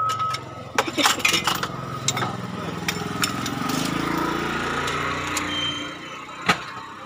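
Metal clinks and knocks from a pry bar levering at a clutch disc whose lining has stuck to the flywheel. A rising drone swells in the middle, and a single sharp knock comes near the end.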